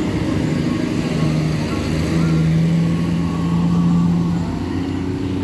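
Intercity coach passing close by and pulling away, its diesel engine running with a steady hum over road noise.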